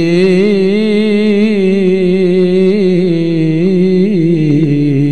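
A man's voice chanting in Arabic, holding one long wavering, ornamented note into a microphone: the drawn-out, melodic recitation of a sermon's opening praise formula.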